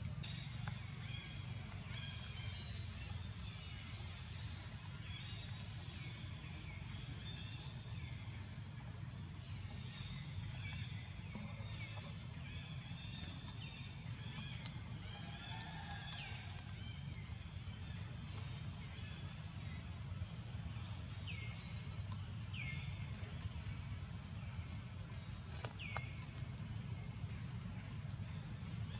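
Outdoor forest ambience: a steady low rumble under a faint, constant high insect drone, with many short high chirps, several of them falling in pitch, repeating throughout.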